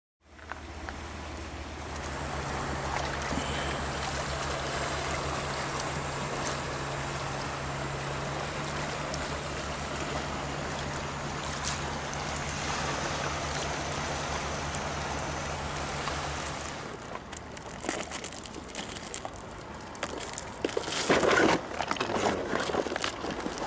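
Sea water washing and lapping on shore rocks, with a steady low drone under it. About two-thirds of the way through this stops suddenly and a plastic bag crinkles, with light knocks of fishing gear on the rocks, loudest near the end.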